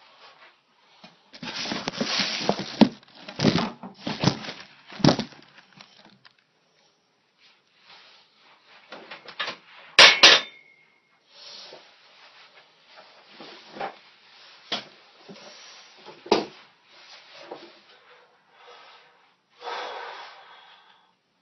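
Clattering, knocking and rustling of someone moving about a home weight bench loaded with a plated barbell. There is a dense patch of knocks in the first few seconds and one sharp metallic clank about ten seconds in that rings briefly, then scattered knocks and a rustle near the end.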